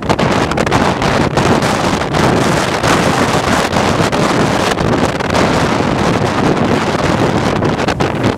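Hurricane Sandy's storm winds buffeting the microphone in loud, steady gusts, with storm waves breaking on the lake underneath.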